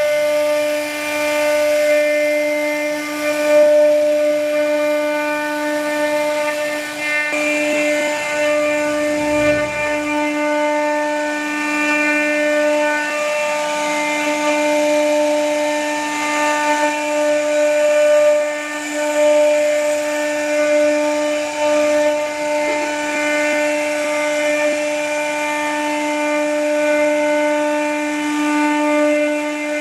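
A CNC router's spindle running with a steady high whine as its bit cuts grooves into a solid wood door panel, with a hiss of cutting noise under the whine.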